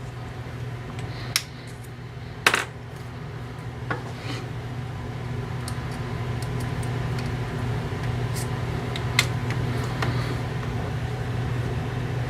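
A few light metallic clicks and taps from the graver being handled against the sharpening wheel setup, the loudest about two and a half seconds in, over a steady low hum that grows a little louder about halfway through.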